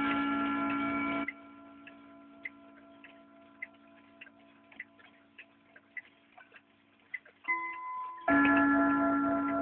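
1960s rope wall clock ticking, a little under two ticks a second. A loud steady hum covers the ticking at first, cuts off suddenly about a second in, and comes back loud near the end.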